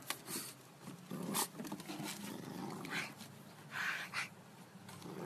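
An English bulldog puppy playing with a rubber toy bone in its mouth makes short noisy sounds, twice drawn out near the middle and end, with a few sharp knocks in between.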